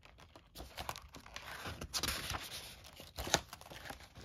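Paper pages of a book being turned and handled: irregular rustling with a couple of sharper flicks.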